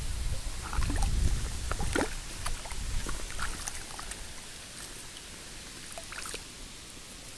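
Small splashes, drips and crackles of water and wet weed stirred by a hand at the edge of a pond, scattered through the first six seconds or so. A low wind rumble on the microphone fades out about two seconds in.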